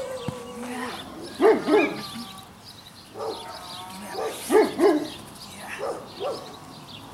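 Puppy barking in short yaps, several coming in quick pairs, while biting and tugging on a jute puppy bite cuff.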